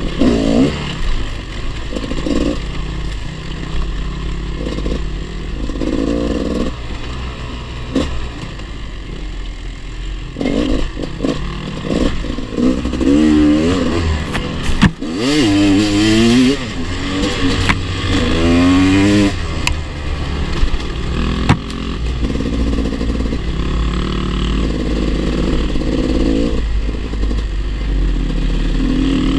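Off-road motorcycle engine running under load on a rough dirt trail, its pitch rising and falling again and again as the throttle is opened and closed, with the rattle of the bike over stony ground.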